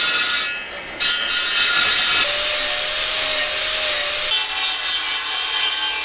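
Power tools cutting a metal plate clamped in a vise: an angle grinder, then a small handheld circular saw. A loud, harsh cutting noise breaks off briefly about half a second in, then resumes and changes character twice, with a steady whine through the middle.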